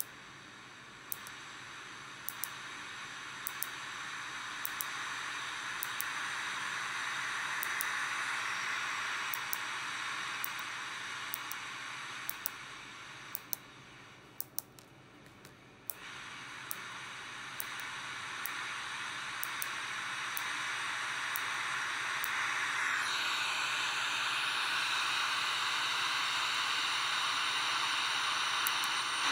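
FM radio kit's small loudspeaker hissing with static while tuned between stations, the hiss swelling and fading and turning brighter about three quarters of the way in. Many short, sharp clicks sound over it as the board's push buttons are pressed.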